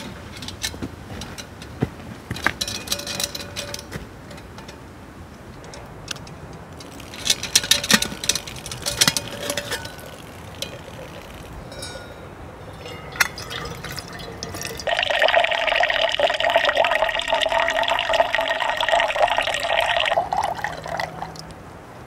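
Water running from the spout of a hanging camp water bag into a metal pot for about five seconds, then cutting off. Before it, scattered clinks and knocks.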